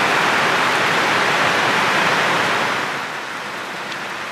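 Heavy tropical rain falling, a steady hiss that drops noticeably in level about three seconds in.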